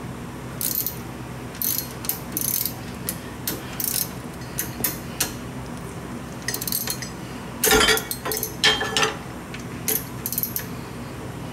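Ratchet wrench clicking in short, irregular runs as it tightens the bolt on a belt pulley of a Mercruiser 3.0 engine, with a louder burst of clicks and clanks about two-thirds of the way through.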